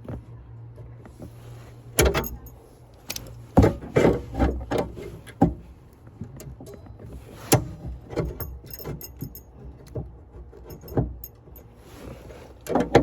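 Car jack being worked loose in its storage compartment: irregular metal clicks, knocks and rattles as it is twisted and pulled. The jack is stuck in its holder.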